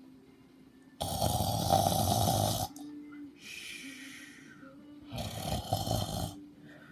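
A person snoring loudly: two long snores, the first about a second in and the second about five seconds in, with a softer airy breath between them.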